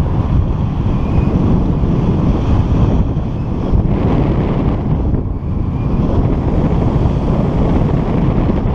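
Airflow buffeting the microphone of a camera on a flying paraglider: a loud, steady rush of wind noise, mostly a low rumble.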